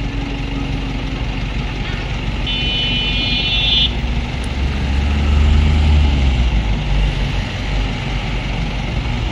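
Road traffic moving off over a level crossing once the barriers lift, with one car passing close and loudest about five seconds in. A short steady high tone sounds for over a second, a couple of seconds in.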